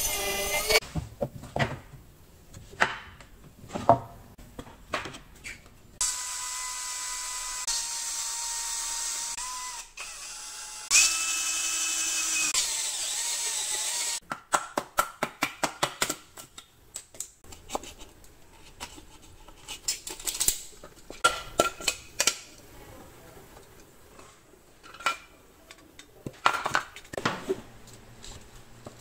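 Cordless drill boring a ring of holes through a wooden board to cut out an opening for a power outlet: it runs steadily for about four seconds, stops briefly, then runs again at a higher pitch for about three seconds. Around the drilling come scattered knocks and clicks of the board being handled, including a quick series of sharp knocks just after the drill stops.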